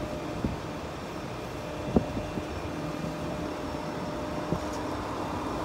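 A truck's engine runs steadily in the background, with a few sharp metal clicks over it, the loudest about two seconds in, as hands work the steel side rail of the diamond-plate deck.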